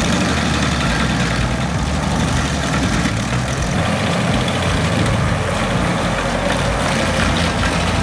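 Heavy machine's engine running steadily, with mechanical noise over it.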